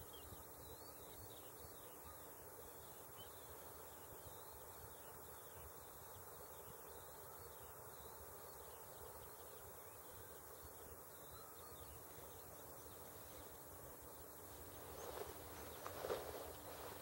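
Near silence: faint outdoor background hiss with a weak steady hum. A few soft knocks and rustles come in the last two seconds.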